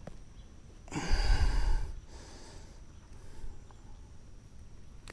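A person's loud, heavy exhale, like a sigh, lasting about a second and starting about a second in.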